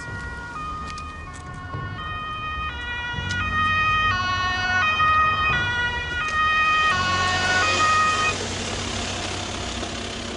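Ambulance two-tone siren, stepping back and forth between a high and a low note, getting louder as it approaches, then cutting off about eight seconds in. The vehicle's engine keeps running after that.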